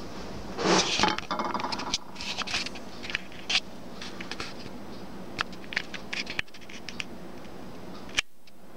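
Camera handling noise: rubbing and scraping on the microphone as the camcorder is picked up and moved, with a loud scrape about a second in, then scattered sharp clicks and taps. A last click comes near the end, just before the sound cuts out.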